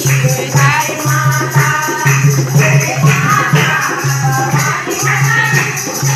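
A group of women singing a Garhwali devotional bhajan, accompanied by a dholak hand drum, hand clapping and jingling percussion.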